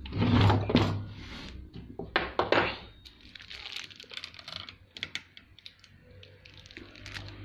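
Handling noise on a Singer sewing machine. A couple of heavier knocks come in the first few seconds as the machine head is brought back upright, then scattered light clicks and taps of a screwdriver against metal parts.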